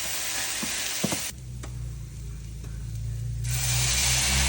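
Rice, onion and garlic sizzling in hot oil in a pot while being stirred, with a few spoon clicks against the pot. About a second in the sizzle cuts out and a low steady hum takes over, then a louder hiss comes back near the end.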